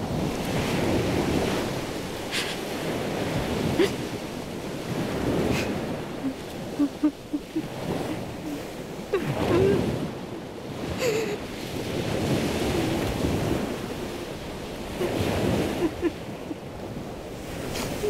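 Sea surf breaking and surging with wind. Over it a woman is crying, with short sobbing cries several times over.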